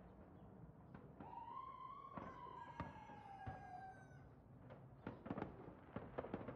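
Faint scattered pops and bangs of fireworks going off in a burning house fire, thickening into a quick cluster of pops near the end. About a second in, a drawn-out tone with overtones rises slightly and then slides slowly down in pitch for some three seconds.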